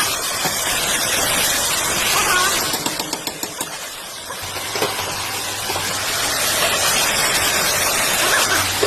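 Car on the move: a steady rush of road and tyre noise, with a low hum coming in about halfway after a brief dip in level, the noise put down to a rear wheel bearing and brake disc.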